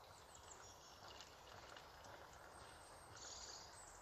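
Very quiet outdoor ambience: hot water being poured from a vacuum flask into a cup, with a few faint bird chirps.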